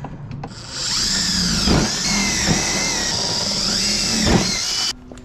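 Cordless brushless impact driver driving a screw into a wooden board: the motor starts about a second in and runs for about four seconds, its whine wavering and dipping in pitch several times, then stops abruptly near the end.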